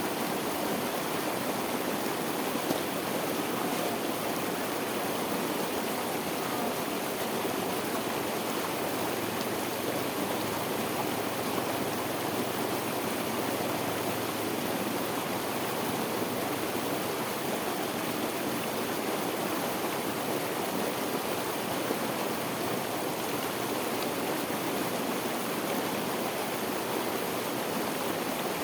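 Steady rush of water pouring over a waterfall and churning in the whirlpool below.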